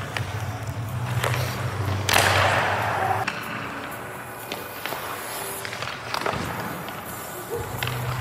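Ice hockey goalie's skate blades scraping the ice as he pushes across the crease, with one loud scrape about two seconds in, plus a few light knocks. A low steady hum sits under the first few seconds and returns near the end.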